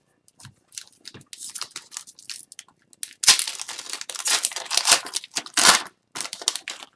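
An Upper Deck Series 1 hockey card pack being torn open by hand. The wrapper crinkles softly for the first few seconds, then tears loudly with crinkling from about three seconds in, and a last short burst comes near the end.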